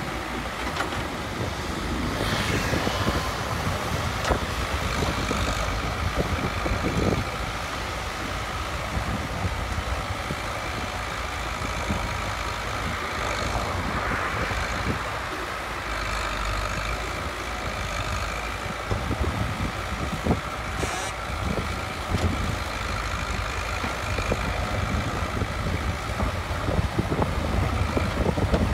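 Caterpillar 424B backhoe loader's diesel engine running steadily under load while its backhoe digs a trench, with a few brief knocks.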